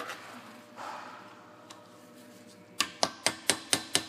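Rapid light hammer taps, about four a second, starting about three seconds in: tapping on a rust-seized snap ring in a wheel bearing knuckle to break it free.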